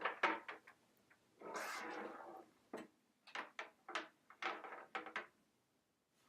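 Faint clicks and knocks in several quick clusters, with a rustling scrape lasting about a second near the start: a power cord being handled and plugged into the back of a Baratza Sette 270 grinder and into the wall socket.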